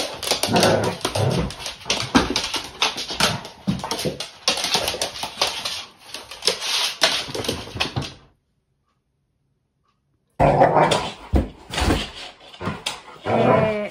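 A Labrador retriever and a flat-coated retriever play-fighting, barking and whimpering. The sound cuts out completely for about two seconds past the middle, then starts again.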